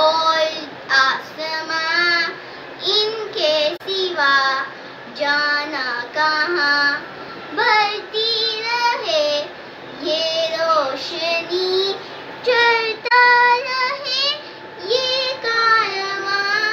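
A young girl singing solo and unaccompanied, in phrases with long held, wavering notes.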